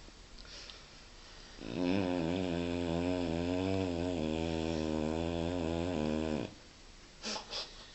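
A sleeping dog snoring: one long snore of about five seconds, starting about two seconds in, its pitch wavering slightly. Two short, sharp sounds follow near the end.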